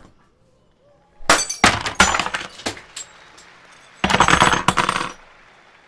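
A run of sharp knocks and clinks with a thin high ringing, starting about a second in, then a louder crash lasting about a second, four seconds in, like glass breaking.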